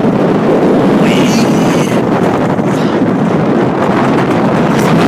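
Wind buffeting the microphone over the steady running noise of an alpine coaster sled riding fast along its steel rail track.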